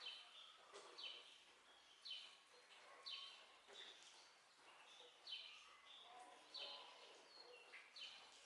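Birds chirping faintly, short high chirps that fall in pitch and come about once a second, over a faint steady hiss.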